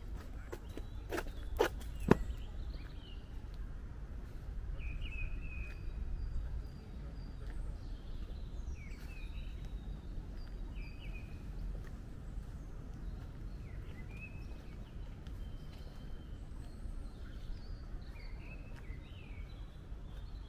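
Small birds chirping in short, scattered calls over a steady low rumble, with a few sharp clicks in the first two seconds, the loudest about two seconds in.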